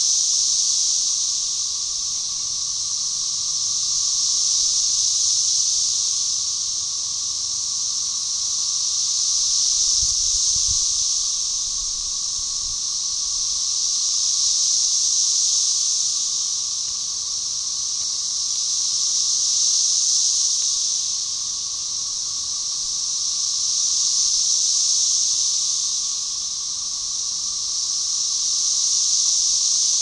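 Chorus of Magicicada tredecassini, 13-year periodical cicadas, calling in synchrony so that the whole chorus swells and fades together about every five seconds. The lower, steady drone of Magicicada tredecim runs underneath.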